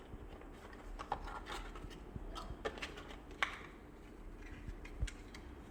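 Faint handling noise from unboxing a tablet's accessories: light rustling of packaging with scattered small clicks and taps as the charging brick and its cable are handled.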